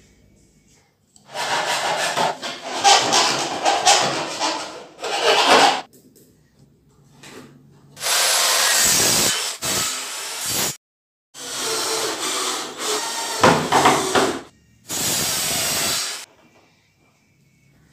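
Electric miter saw running and cutting through wood in several separate bursts of a few seconds each, each one starting and stopping abruptly.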